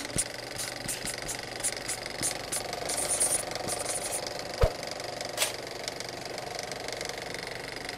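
Marker scribbling on a board in quick, scratchy strokes, with one sharp click about halfway through.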